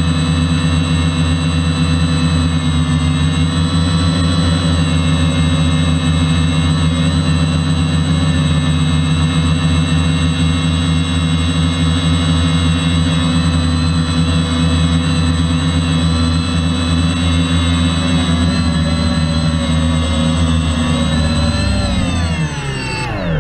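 DJI F450 quadcopter's brushless motors and propellers running with a steady, many-toned whine, then spinning down together in falling pitch near the end.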